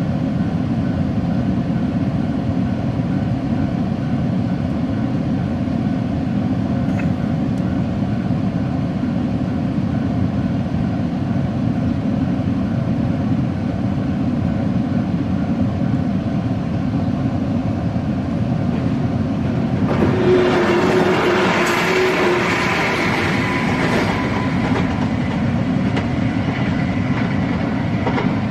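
A train running past a railway level crossing, a steady heavy rumble of wheels on rail. About two-thirds of the way through it grows louder and brighter for a few seconds, with a thin sustained tone over the rumble.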